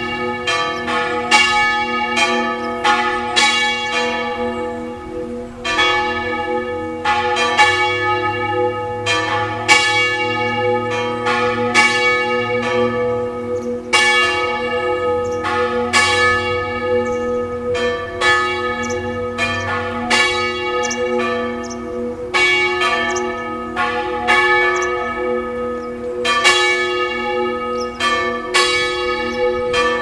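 Two swinging church bells, a 600 kg bell cast in 1884 and a 400 kg bell cast in 1684, ringing together. The strokes come one to two a second in an uneven pattern, each ringing on into the next over a constant hum.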